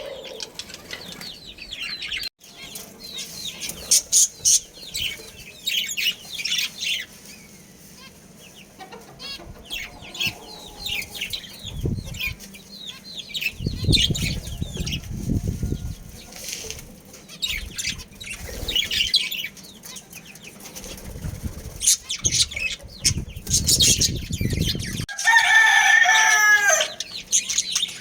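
Budgerigars chirping in quick, high twitters throughout, with bursts of wing flapping midway and again later. A louder, lower call with a falling pitch comes near the end.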